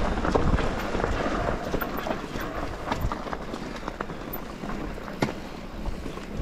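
Mountain bike rolling fast over a stony dirt trail: tyres crunching on gravel, with many small clicks and rattles from loose stones and the bike. A low wind rumble on the microphone is heaviest in the first second or two.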